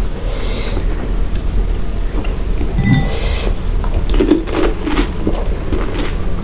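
Pani puri being eaten close to the microphone: short crisp crunches of the puri shells and a few clinks of dishes, over a steady low hum.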